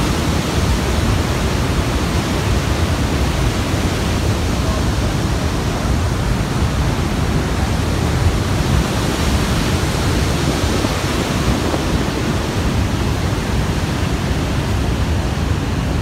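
Steady, even rush of falling and churning water at Niagara Falls, heaviest in the low end.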